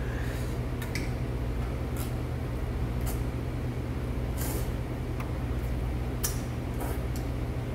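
A man slurping cold wheat noodles (milmyeon) from a metal bowl: short sucking hisses come about every second, with a longer one about four and a half seconds in. Under them runs a steady low hum.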